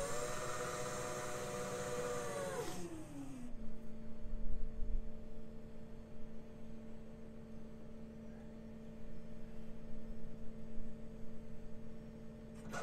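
Boom crane truck's engine and hydraulic pump running with a steady whine. About three seconds in it drops in pitch and settles to a lower steady hum, as the revs come down from working speed, then begins to rise again at the very end.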